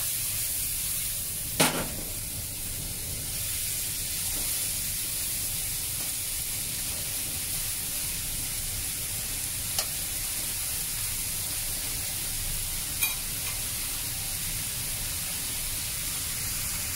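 Cauliflower stir-frying in a hot nonstick pan with a little cornstarch slurry just added: a steady sizzle as it is stirred. A sharp knock of the spatula against the pan about a second and a half in, and two lighter taps later.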